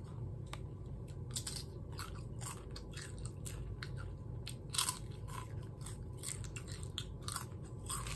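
Nacho Cheese Doritos tortilla chips being bitten and chewed: irregular, crisp crunches one after another, with a steady low hum underneath.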